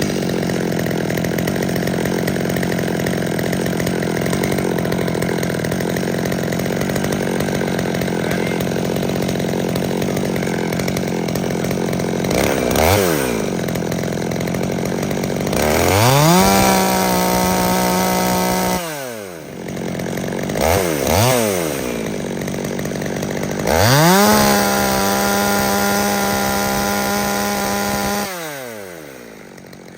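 Holzfforma G111 small two-stroke chainsaw idling steadily, then revved up to full throttle and held for about three seconds, dropped back with a couple of quick blips, and held wide open again for about four seconds before falling back near the end. These are the test runs of a carburettor being retuned because the saw was running too rich.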